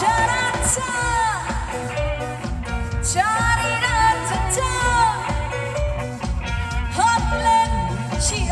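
Live band playing a slow pop song, with a steady drum beat and a lead melody in long gliding phrases that begin about every three to four seconds.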